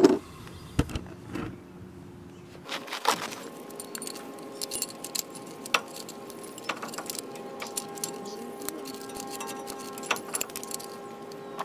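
Scattered metallic clinks and rattles as a disc brake caliper piston tool is taken from its case and fitted against a rear brake caliper. From about three seconds in, a faint steady hum sits underneath.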